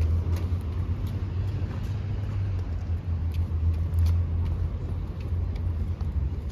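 Steady low rumble of a car heard from inside the cabin, with a few faint scattered clicks.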